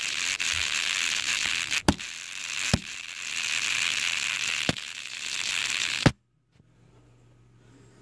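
Rustling handling noise as the phone is carried and rubbed, a steady rushing hiss broken by a few sharp knocks, which cuts off suddenly about six seconds in, leaving a faint low hum.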